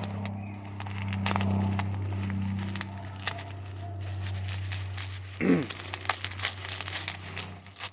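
Bubble wrap being pulled and unwrapped off a potted plant, a continuous crinkling with many small crackles.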